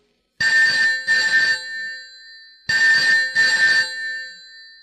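Landline telephone ringing in a double-ring pattern: two pairs of rings, each pair starting about two seconds after the last.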